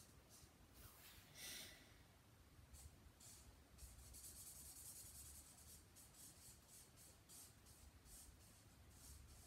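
Fine felt tip of a Shuttle Art skin-tone marker stroking back and forth on sketch-pad paper: faint, quick scratchy strokes, with one louder, longer rasp about a second and a half in.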